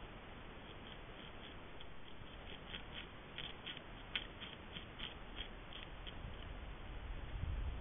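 North American beaver working at a branch in deep snow: a run of small, irregular crunching clicks for a few seconds over a steady hiss, with a low rumble building near the end.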